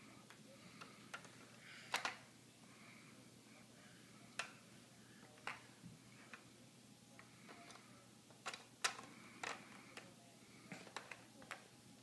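Irregular light clicks and taps of small plastic toys being knocked about by a crawling baby, a plastic ball against a plastic elephant toy. A pair of clicks comes a couple of seconds in, single ones follow, and a quick cluster comes after about eight seconds and again near the end.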